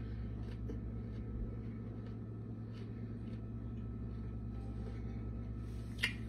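Faint crunching of a corn chip being chewed, as scattered soft clicks over a steady low hum, with one sharper click near the end.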